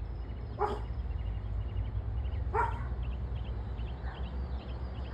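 A dog barking: two short barks about two seconds apart, then fainter ones, over a steady low rumble. Faint quick high chirps run through the second half.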